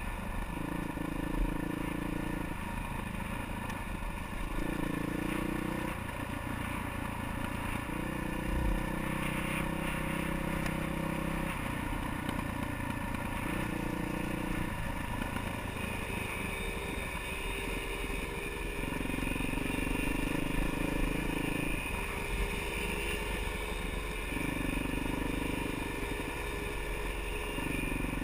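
Off-road motorcycle engine under a trail rider, the throttle opening and closing over and over so the engine note steps up and down every second or two, with some clatter over the rough ground.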